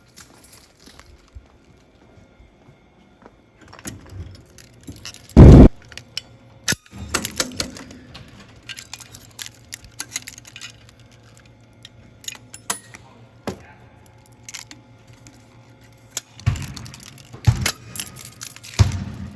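Keys jangling amid scattered clicks and handling knocks, with one loud, short thump about five and a half seconds in and several more knocks near the end.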